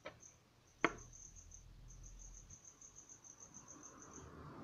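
A fast, even train of high-pitched chirps, about seven a second, with a short break about one and a half seconds in and stopping near the end. A single sharp click, the loudest sound, comes about a second in.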